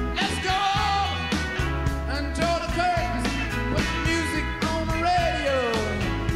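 Rock music playing: a gliding lead melody over a steady bass line.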